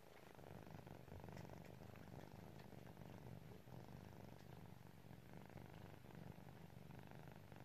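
Kittens purring softly and steadily, a continuous low rumble.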